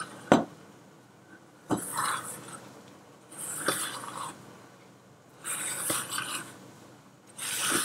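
Silicone spatula scraping around a stainless steel bowl, folding flour into sponge-cake batter: four scraping strokes about two seconds apart, with a sharp tap against the bowl early on.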